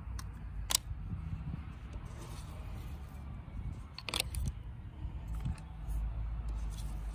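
Steady low outdoor rumble with two short, sharp clicks, one about a second in and one about four seconds in, like handling taps on a table.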